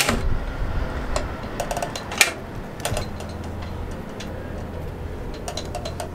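Wrought-iron gate and its box lock rattled by hand: a run of sharp metal clicks and clanks in the first three seconds, the loudest about two seconds in, then a few fainter clicks near the end, over a low rumble. The gate is locked and does not open.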